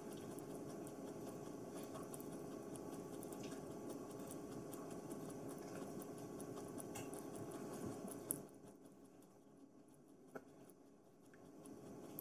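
Guinea pig chewing a strand of spaghetti: faint, rapid little clicks of munching that die down about eight seconds in.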